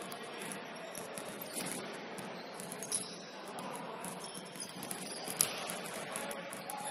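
Indoor basketball court during a free throw: faint high-pitched chirping squeaks over the hall's background, then a single sharp knock about five and a half seconds in as the shot reaches the rim.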